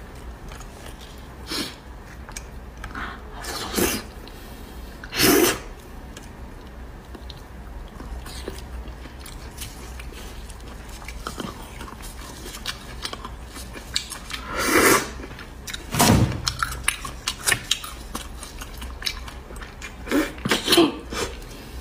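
Close-up eating sounds: wet chewing of braised beef bone marrow, broken by several short, sharp slurps as marrow is sucked from the bone pieces, the loudest about five seconds in and again around fifteen seconds, with a quick run of them near the end.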